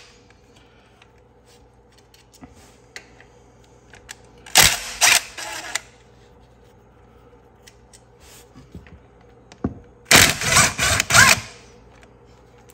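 A cordless power tool driving a socket in two bursts of about a second each, a few seconds apart, spinning out the small 8 mm bolts of the aluminum oil filter cover on an ATV engine.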